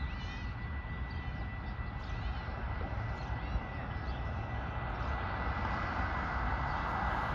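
Amtrak passenger train approaching, its rumble growing steadily louder toward the end. A thin steady high whine runs under it until near the end, and a few short chirps sound in the first few seconds.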